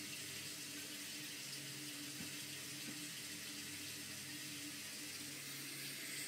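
Water running steadily from a tap into a sink, as for washing hands.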